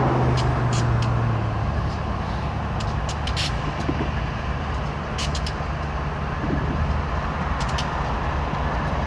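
Diesel-electric locomotive engines idling with a steady low hum, with a few brief, sharp clicks or hisses over it.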